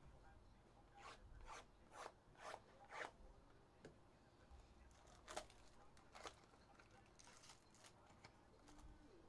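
Plastic shrink wrap being cut and peeled off a sealed trading-card hobby box, heard as faint scratchy, crinkly strokes. A quick run of them comes about every half second in the first three seconds, then a few more spaced out.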